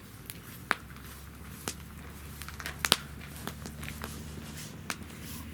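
Wood fire burning in a fire-pit stand, crackling with irregular sharp pops. The loudest pop comes about three seconds in, just after a smaller one.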